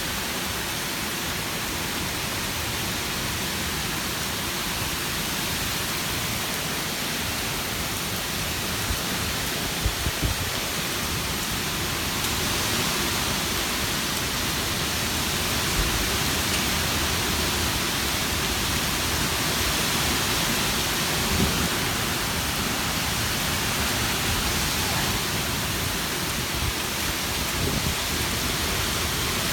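Heavy rain pouring in a strong wind, a steady hiss with a few brief low thumps of wind gusts on the microphone.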